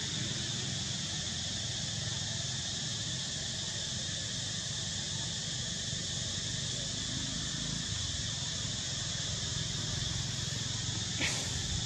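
Steady outdoor ambience: a continuous insect drone with a constant high tone over a low rumble. One short click comes near the end.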